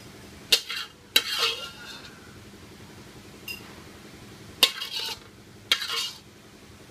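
Metal spatula knocking and scraping against an aluminium wok and a plate while stir-fried greens are served out of the wok: four sharp clanks, each followed by a short scrape.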